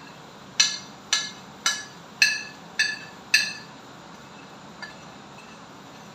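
Metal spoon tapping against a ceramic plate six times, about two a second, each a sharp ringing clink, as spices and chopped vegetables are knocked off into the pot; the tapping stops a little past halfway.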